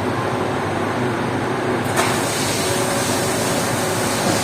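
Engine of a Putzmeister concrete pump truck running steadily under the hiss of water from its freshly replaced high-pressure water pump, now spraying with strong pressure. A click about two seconds in, after which the hiss turns brighter.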